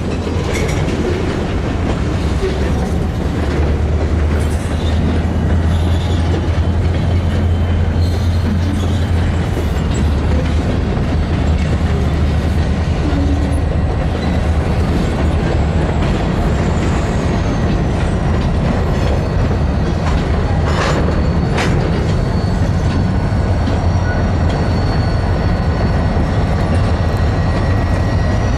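Lake State Railway freight train rolling by with a steady heavy rumble, a couple of sharp clicks from the wheels about two-thirds of the way through, and a thin, high wheel squeal that slowly slides in pitch in the second half.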